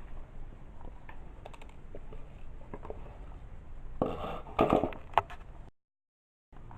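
Scattered light clicks and crackles of kitchen items being handled, with a denser burst of clicks about four to five seconds in. The sound then drops to dead silence for under a second near the end, as at an edit.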